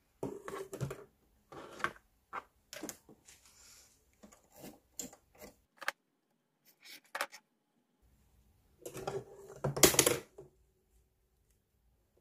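Cotton quilting squares being handled over a cutting mat: short rustles and light taps, a quiet pause of about two seconds in the middle, then a louder burst of rustling near the end.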